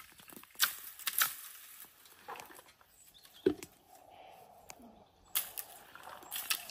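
Long wooden poles beating the branches of an olive tree, each strike a sharp knock or swish with a burst of leaf rustle and olives pattering down. The strikes come irregularly, about half a dozen of them, the loudest a knock about halfway through.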